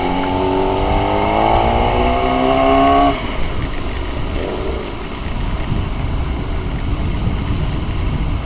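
Motorcycle engine accelerating, its pitch rising steadily for about three seconds, then the throttle shuts off and steady wind and road noise remain.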